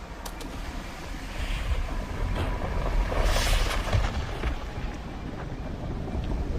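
Film sound effects of a meteor strike: a deep rumble throughout, with a rushing whoosh that swells to a peak about halfway through and then eases off, and a few faint crackles.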